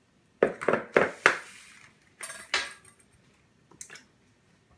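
Eggs being knocked and cracked against the rim of a plastic mixing bowl: four sharp knocks in quick succession about half a second in, then softer clicks and crackles of shell.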